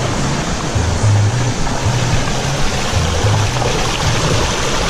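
Steady rush of flowing water, with the low notes of background music beneath it.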